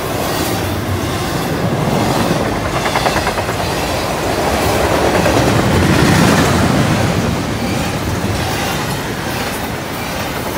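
Double-stack intermodal freight train rolling past close by: the steady rumble and clatter of steel wheels on rail under loaded container well cars, loudest about six seconds in.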